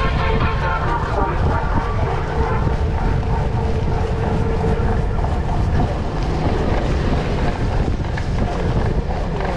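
Wind buffeting the microphone over the rumble and rattle of a cyclocross bike rolling at speed across grass, brick paving and leaf-covered dirt. The noise is steady, with the weight in the low rumble.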